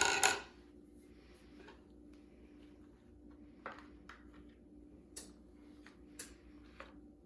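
Brown sugar tipped from a small cup into a mixing bowl: a short rustling clatter at the start, then a few light taps and clicks of kitchenware against the bowl and counter. A faint steady hum runs underneath.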